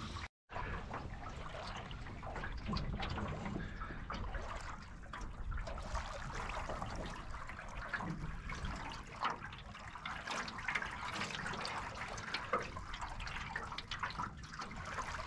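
Water lapping and splashing against the aluminium hull of a Grumman Eagle 15 sailing canoe under way, a steady wash with many small splashes. The sound breaks off for a moment just after the start.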